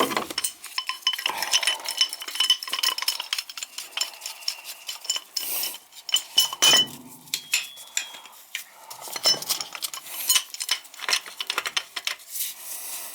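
Metal tools and fittings clinking, tapping and scraping in quick, irregular clicks, some ringing briefly, as a furnace gas valve is worked loose and removed.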